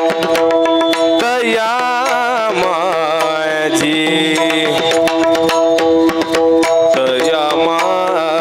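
Devotional Marathi abhang singing: a voice holding long, ornamented high notes on the words 'daya' and 'majhi' over a steady sustained accompaniment, with pakhawaj drum strokes and sharp clicks keeping the beat.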